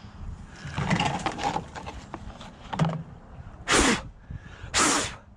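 Rustling and light knocks of handling, then two short, sharp bursts of hissing air about a second apart.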